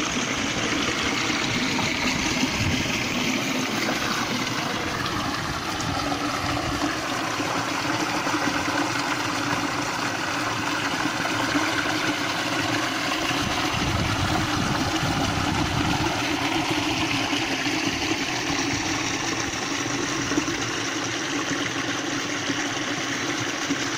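Stream water rushing and splashing through a narrow rock channel into a pool: a steady rushing noise.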